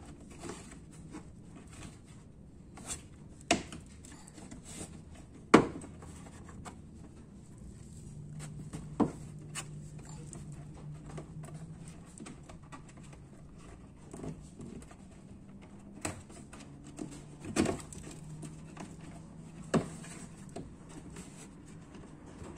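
Scattered clicks and knocks of a plastic car front skirting panel and its clips being pressed and worked by hand, the loudest knock about five and a half seconds in.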